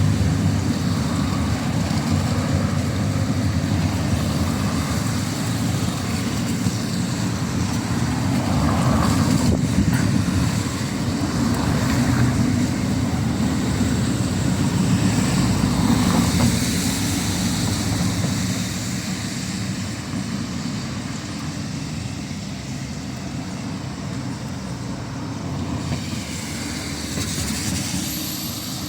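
Busy city-street ambience: a steady low rumble of road traffic, easing somewhat after about twenty seconds.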